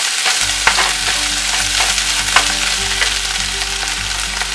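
Canned mushrooms, onions and garlic sizzling in a hot nonstick frying pan while a wooden spoon stirs them, scraping and knocking against the pan now and then.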